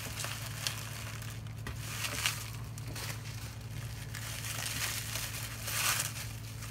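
Bubble wrap crinkling and rustling in the hands as a small plastic toy is unwrapped, in irregular bursts that are loudest about six seconds in, over a steady low hum.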